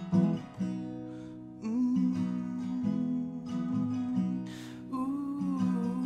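Acoustic guitar being strummed and picked in an instrumental gap of a song, with a long held note that wavers in pitch over it from about a second and a half in.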